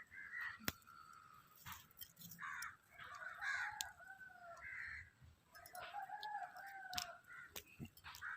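Faint rooster crowing and other birds calling, several drawn-out calls, the longest lasting over a second near the end. A few sharp clicks stand out about a second in and again near the end.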